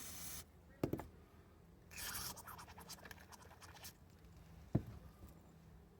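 Hand tap and tap wrench working in a drilled-out bolt hole of a small-block Chevy head: a scratchy, rasping scrape of metal on metal with small ticks, and two sharp metallic knocks, one about a second in and one near the end.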